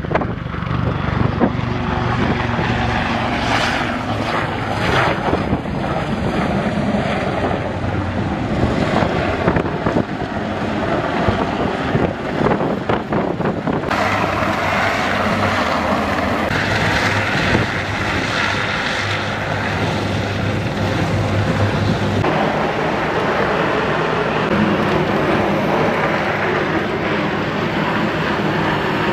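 Helicopter flying over the sea: steady rotor and engine noise with wind on the microphone. About halfway through the sound changes abruptly to the engine and wind noise of a rigid inflatable boat under way.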